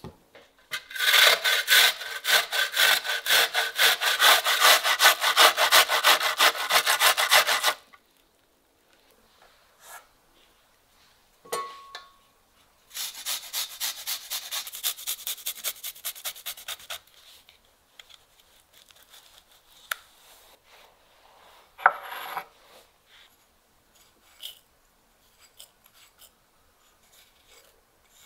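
An onion rubbed back and forth over a metal hand grater into a glass bowl, making a long run of rapid, even rasping strokes, then a softer run a few seconds later. One sharp knock comes late on.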